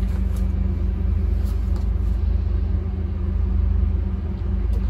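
Steady low hum with a rumble beneath it from the lab's machinery, and a few faint light clicks.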